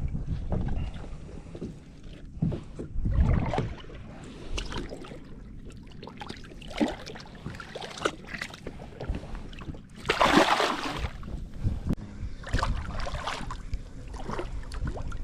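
Kayak on the water, with wind on the microphone, scattered knocks against the hull and a brief louder rush of noise about ten seconds in.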